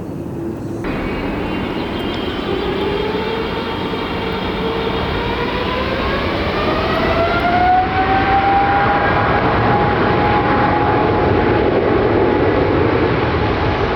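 Jet airliner engines running loud: a heavy rumble with a whine that rises in pitch over several seconds, then holds steady.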